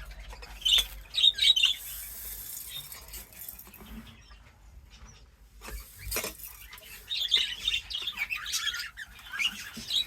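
Small caged pet birds chirping: a few quick chirps about a second in, then a longer run of chirping from about seven seconds, with a few scattered clicks in between.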